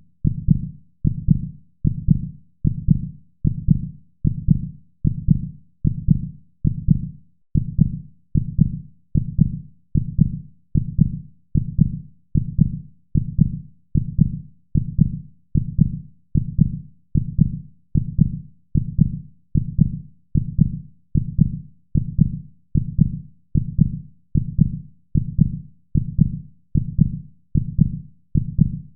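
Heartbeat, a steady lub-dub double thump repeating about once a second, low in pitch.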